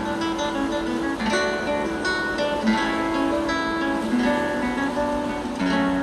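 Background music on acoustic guitar: a steady run of plucked notes and strummed chords.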